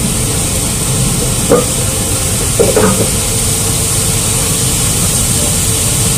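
Steady machinery drone with a hiss aboard a fishing vessel's galley, from the ship's running engine and equipment. Cookware clanks once about a second and a half in and twice more near three seconds.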